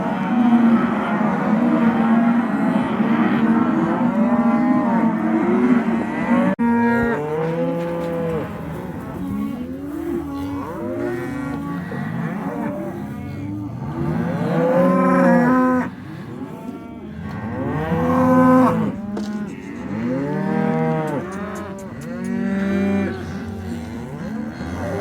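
A herd of cattle mooing, with many calls overlapping one another and rising and falling in pitch. There is a sharp click about six and a half seconds in.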